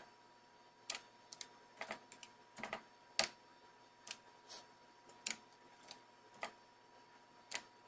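Computer keyboard keystrokes: about fifteen sharp clacks at an uneven, hunt-and-peck pace as lines of G-code are typed in.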